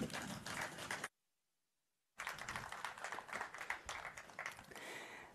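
Faint scattered audience applause, many quick overlapping claps, broken by about a second of dead silence about a second in.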